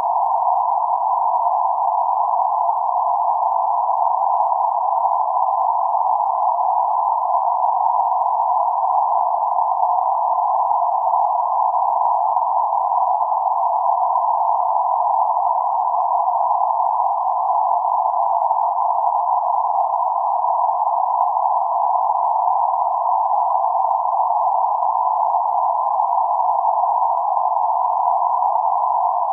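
Synthetic band-limited noise centred around 848 Hz: a steady, even hiss confined to a narrow midrange band, with a slightly tone-like quality and no change throughout.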